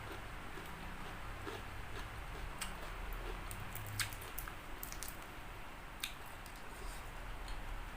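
Close-up chewing and biting of crispy fried chicken, with scattered sharp clicks of the crust and a louder crack about four seconds in, over a low steady hum.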